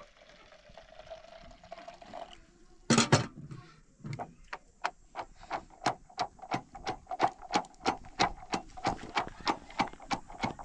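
Water poured from a kettle into a cut-off plastic bottle, its pitch rising slightly as the bottle fills. After a loud knock about three seconds in, a wooden pestle pounds curd and water inside the plastic bottle in quick regular strokes, about three a second, working the curd into the water.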